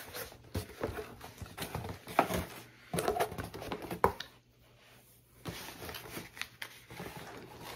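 Irregular taps, knocks and rustles of a sneaker box and its contents being handled, with a quieter pause about halfway through.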